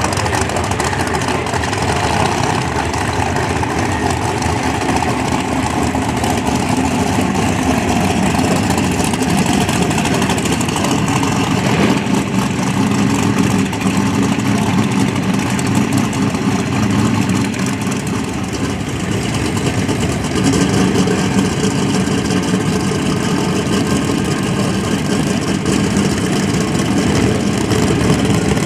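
Drag race car engines idling steadily.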